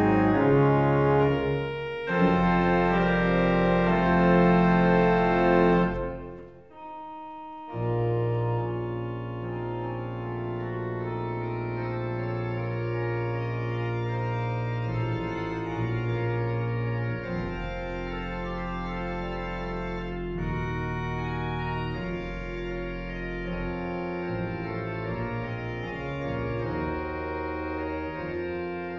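Church organ playing sustained chords: loud full chords stop about six seconds in, and after a brief pause softer playing carries on.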